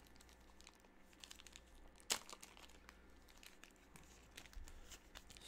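Faint handling of trading cards and their plastic or foil packaging: light crinkling and small taps, with one sharper click a little over two seconds in.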